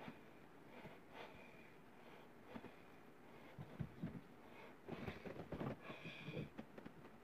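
A man breathing heavily through his nose while he works, with faint clicks and scrapes of hand tools at a shower valve, busiest in the second half.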